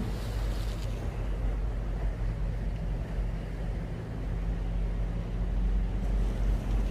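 A steady low motor hum under a rumble of open-air noise.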